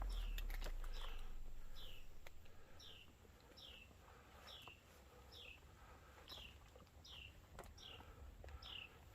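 A songbird repeating one short whistled note that slides downward, a little under two a second, over quiet woodland background. A low music track fades out over the first two seconds.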